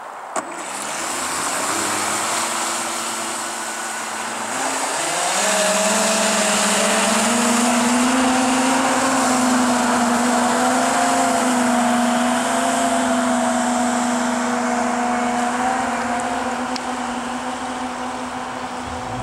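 Homemade electric jet-drive kayak speeding up: the motors and jet impeller whine, rising in pitch about five seconds in and then holding steady, over the hiss of water thrown out by the jet. A single sharp click just after the start.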